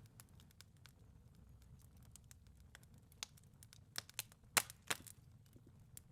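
Faint crackling of a fireplace fire: scattered sharp pops and snaps over a low steady background, with a few louder snaps around four to five seconds in.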